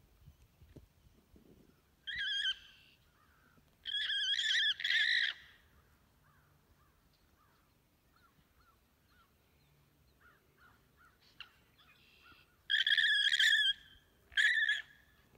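Alpaca screaming in distress while being chased by a dominant herd-mate: shrill, repeated screams, one short one about two seconds in, two back to back around four to five seconds, then two more near the end.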